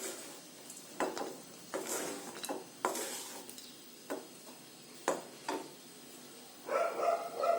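A spoon knocking and scraping against a kadai, about one clink or scrape a second, as dry-roasted cashews and cardamom are stirred or scooped out with the stove turned off. Near the end there is a longer, louder sound with more of a ring to it.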